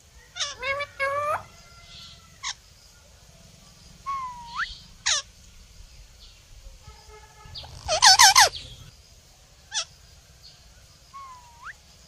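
Indian ringneck parakeets calling: a string of short pitched calls and whistle-like glides, with the loudest a rapid harsh run of notes about eight seconds in.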